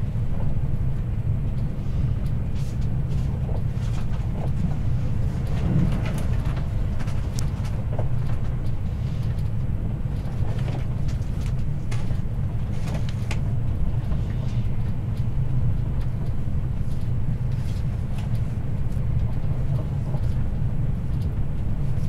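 Train running along the track, heard from inside the passenger car: a steady low rumble from the wheels and rails, with scattered light clicks and rattles.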